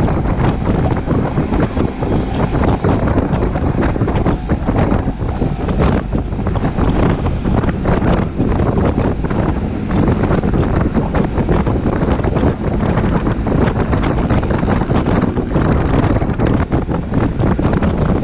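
Steady, heavy wind buffeting on a GoPro's microphone while riding a Honda Forza 300 scooter at road speed, with vehicle noise underneath.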